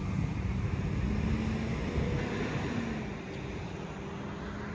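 Steady low outdoor rumble with a faint hum running through it.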